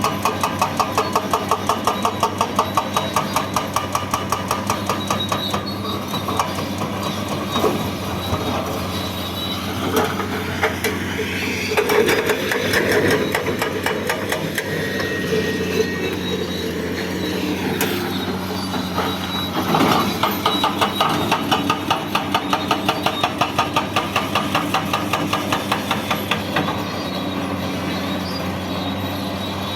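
Caterpillar 336D L excavator's hydraulic breaker hammering in rapid, evenly spaced blows over the steady diesel engine. The hammering stops for about a third of the way through while the engine and hydraulics keep running, swelling around the middle, then starts again.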